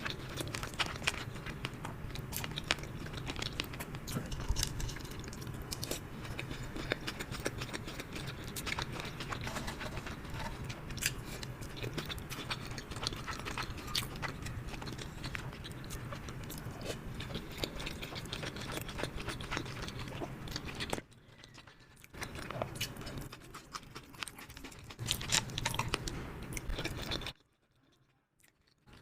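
Close-miked eating: biting and chewing food, with dense small crunchy, wet clicks over a steady low hum. The sound drops briefly about three-quarters through and goes nearly silent just before the end.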